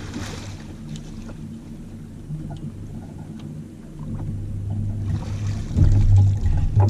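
A boat motor humming steadily at a low, even pitch, with louder low rumbling in the last second or so.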